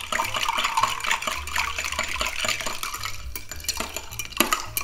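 Long bar spoon stirring a cocktail over ice in a glass: a continuous rapid run of clinks and rattles of metal and ice against the glass.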